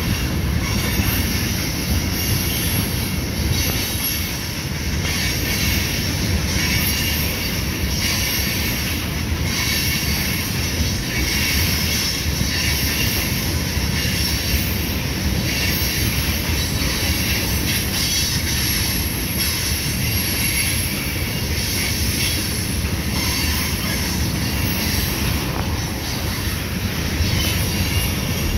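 Freight train of tank cars rolling steadily past on a curve: a continuous rumble of steel wheels on rail, with high-pitched wheel squeal from the bend.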